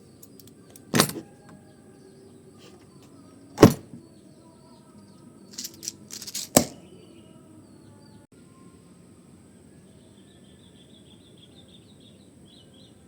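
LCT AKS74N airsoft rifle giving sharp metallic clacks: one about a second in, another at about three and a half seconds, then a quick run of lighter clicks and a third loud clack at about six and a half seconds. Birds chirp faintly near the end.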